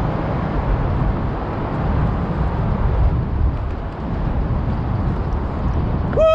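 Steady low rumbling outdoor noise. Right at the end a loud drawn-out vocal cry starts, sliding down in pitch.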